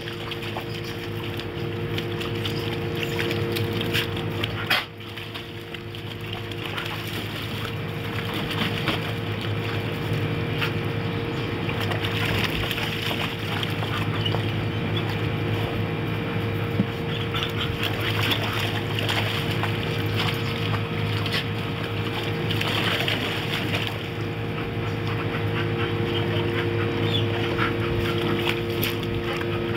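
A dog splashing and wading in a plastic kiddie pool, water sloshing with louder splashes now and then. A steady hum runs underneath.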